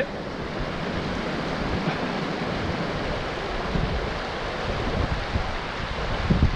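Small mountain stream rushing over stones, a steady wash of water. Gusts of wind buffet the microphone in the second half, with a strong low rumble near the end.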